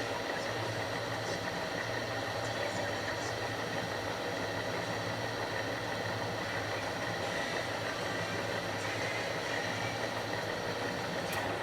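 Enshu VF2 vertical milling machine running steadily, an even hum with a thin high whine over it.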